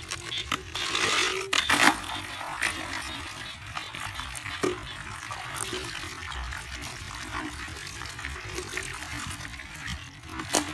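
Live crabs scrabbling in a plastic bucket, their legs and claws making irregular clicks and scratches on the plastic. There is a louder burst of scraping and rustling between one and two seconds in, as the crabs are shaken out of a plastic bottle trap.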